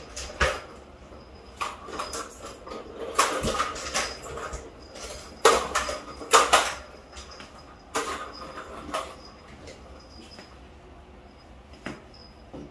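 Plastic balls rattling and clacking in the tracks of a three-tier cat ball-tower toy as kittens paw at them, a run of irregular knocks and clatters that thin out in the last few seconds.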